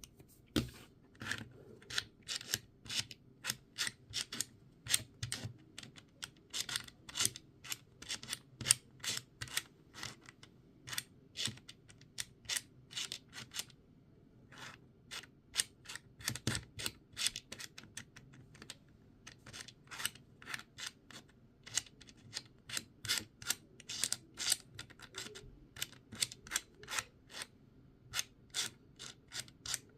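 Plastic blocks of a 3D-printed Setting Sun sliding puzzle being slid and knocked against each other and the frame, making many sharp clicks and clacks at an uneven pace, with a couple of short pauses.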